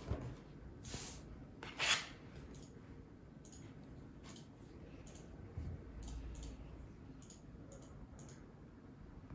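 Light knocks and clicks of tableware being handled on a table: two sharper knocks about one and two seconds in, then scattered small clicks.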